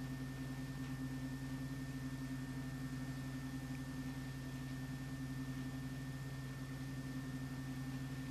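Steady low hum in two pitches with an even hiss and a faint steady high whine, unchanging throughout.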